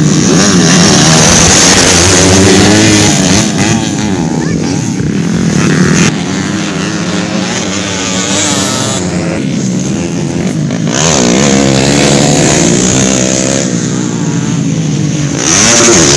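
Motocross dirt bikes' engines revving up and down as they ride the dirt track, the pitch rising and falling with each throttle change. The loudness drops and jumps back several times.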